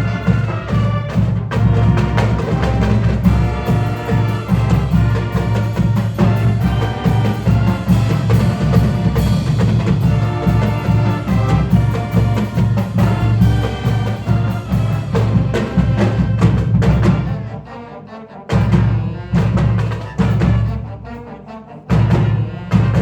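Marching band playing a loud piece with heavy drums and percussion under the winds. About 17 seconds in, the full sound drops away into a few separate loud accented hits with short gaps between them.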